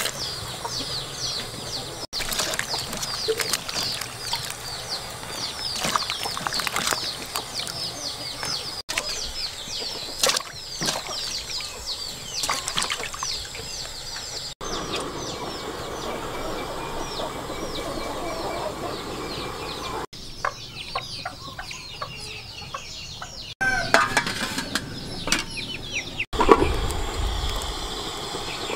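Chickens clucking and chirping, with many short high chirps in the first half. In the last few seconds there are a few louder knocks as pieces of pumpkin are set down on a perforated metal steamer tray.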